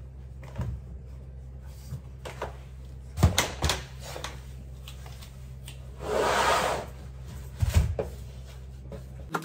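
Laundry being handled at front-loading washing machines: clothes pulled out of the drum, with a few sharp knocks of the machine door and drum about three seconds in and again near the end, and a short rustle of fabric about six seconds in, over a low steady hum.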